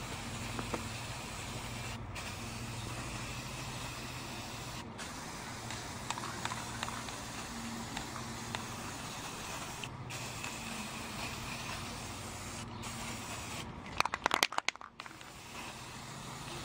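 Aerosol spray paint can hissing as black paint is sprayed onto styrofoam, broken by a few brief gaps, over a low steady hum. A quick run of loud clicks comes about fourteen seconds in.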